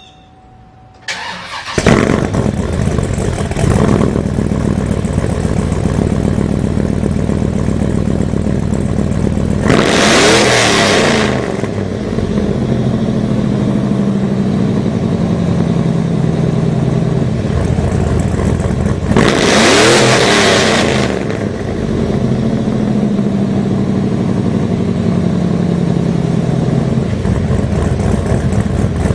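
Chevrolet Avalanche 2500's 8.1-litre Vortec 496 big-block V8, fitted with Raylar Stage 2 heads and camshaft, cranking and catching about a second in with a quick blip of the throttle. It then idles steadily and is revved up and let fall back twice, about ten and twenty seconds in.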